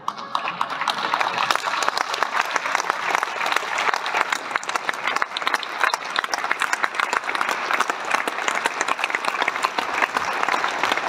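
A crowd applauding: many hands clapping in a dense, steady patter that breaks out at once and keeps going.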